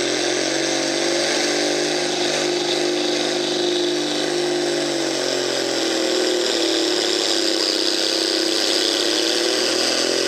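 Farm tractor's diesel engine running hard under load as it drags a weight-transfer pulling sled. The engine note sags about halfway through as the load builds, then climbs back near the end.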